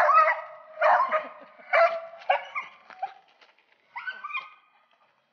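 Beagle baying: a run of short, pitched barks about one a second, fainter near the end. This is a hound giving voice on a fresh snowshoe hare trail.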